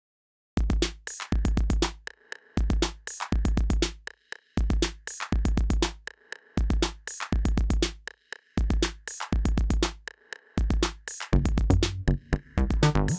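Pure Acid drum machine playing a 120 BPM electronic beat: deep kick drum thumps with sharp hi-hat ticks, in a pattern that repeats every two seconds, starting about half a second in. About eleven seconds in, a pitched 303-style synth bass line joins the beat.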